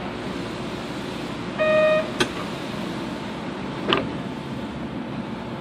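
Steady interior noise of a Kobe City Subway 3000-series train car. About a second and a half in comes a short electronic beep, a sharp click just after it, and a knock about four seconds in.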